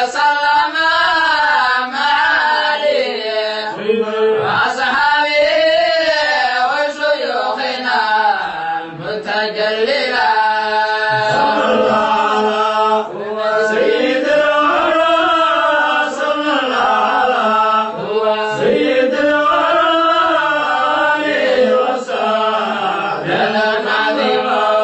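Chanting of a Somali qasiido, a devotional Sufi poem, in a continuous melodic line.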